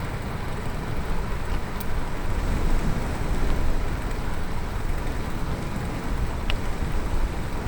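Steady rush of riding a bicycle on a road: wind on the microphones and tyres rolling on the surface, heaviest in the low rumble. There are two faint short ticks, one about two seconds in and one near the end.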